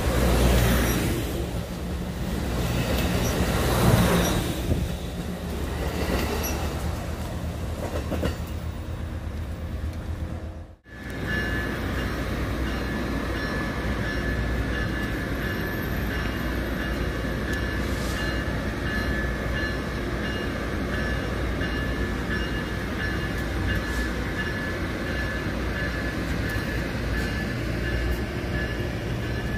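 Amtrak Pacific Surfliner bilevel passenger cars rolling past close by, a loud rumble of wheels on rail that swells and fades. After a sudden cut about ten seconds in, a Metrolink commuter train is heard instead: a steady mechanical hum with a thin, steady high whine.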